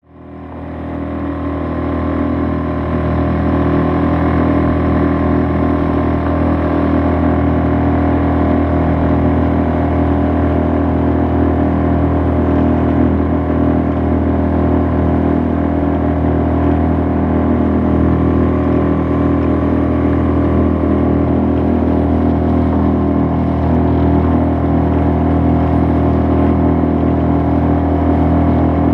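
Suzuki 2.5 hp single-cylinder four-stroke outboard motor running at a steady cruising speed, pushing a small rowboat along with water rushing in its wake. The sound fades in over the first couple of seconds.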